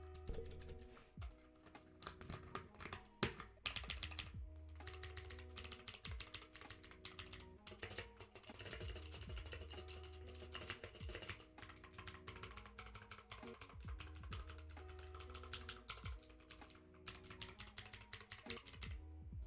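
Typing on a mechanical keyboard with clicky Cherry MX Blue switches: a rapid, irregular run of sharp key clicks, fastest and densest mid-way, with short pauses near the start and end.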